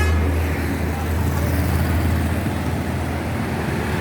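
Bus engine running with a deep steady hum that weakens after about a second and a half, over road traffic noise.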